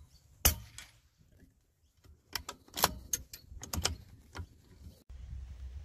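.22 LR rimfire bolt-action rifle (CZ 452) firing one sharp shot about half a second in, then a fainter knock about a third of a second later. From about two seconds in, a quick run of metallic clicks and clacks follows as the bolt is worked to chamber the next round.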